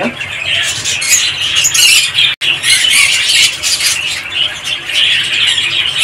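A mixed aviary flock of small parrots (budgies, lovebirds, conures and cockatiels) chattering and calling all at once in a dense, continuous high chirping. The sound breaks off for an instant about two and a half seconds in.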